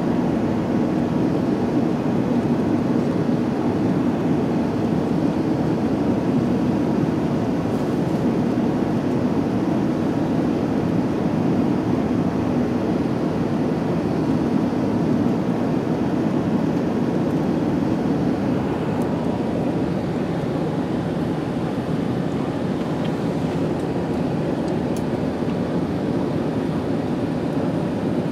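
Steady cabin noise inside an Airbus A380 in flight: a low rumble of engines and rushing air, easing slightly about two-thirds of the way through.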